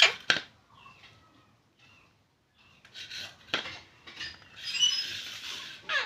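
Parakeets' beaks knocking and scraping on a stainless steel plate as they feed: a few sharp metallic clinks and a longer scrape, with a quiet gap between them.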